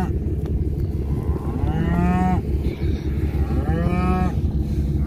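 Beef cows mooing: two drawn-out calls about two and four seconds in, each around half a second long, with another starting right at the end, over a steady low rumble.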